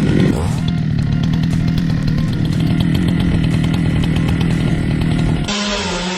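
Gasoline chainsaw running at high revs with a steady pitch, cutting off abruptly about five and a half seconds in.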